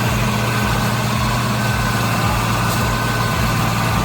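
Heavy truck's diesel engine idling steadily: an even, deep hum with a fainter steady whine above it.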